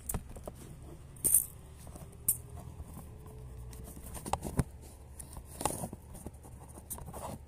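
Handling noise: a scattered run of small knocks, taps and rustles from hands and the handheld camera moving, over a faint steady low hum.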